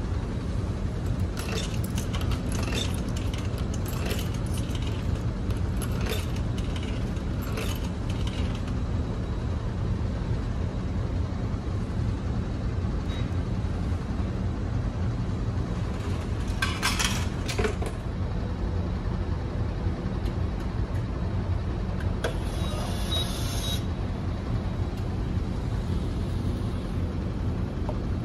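Steady low drone of the ferry's engines, with scattered clicks and clinks from a cup vending machine being operated and a brief hiss late on as it dispenses a hot drink.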